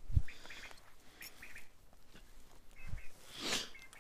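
Quail calling: short high notes in quick little groups of two or three, repeated several times. A dull thump comes right at the start, and a brief swish about three and a half seconds in.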